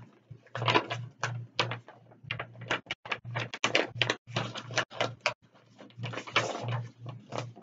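Paper rustling and crinkling as a manila envelope is handled and opened and the papers inside are pulled out, in short irregular bursts.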